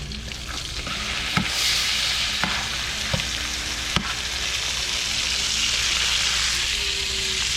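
Cichlid fillets sizzling in garlic butter in a frying pan, a steady hiss that swells a little about a second and a half in. A few sharp clicks sound over it in the first half.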